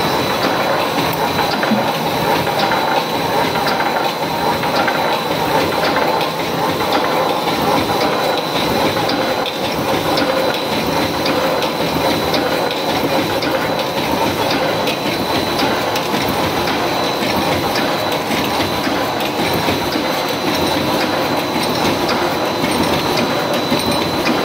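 Electric wire mesh welding machine running, with a steady, even clatter from its welding and mesh-feeding cycle and a steady high whine over it.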